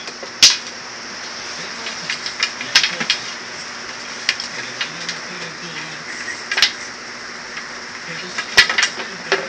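A puppy playing with a toy on a hard stone floor: irregular sharp clicks and clatters as the toy and the dog's claws hit the floor. The loudest clacks come about half a second in and near the end.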